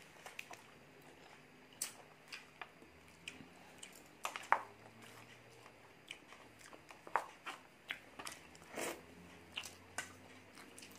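Close-miked eating sounds: chewing and biting food, with irregular sharp clicks and taps of forks picking at food in plastic takeaway containers.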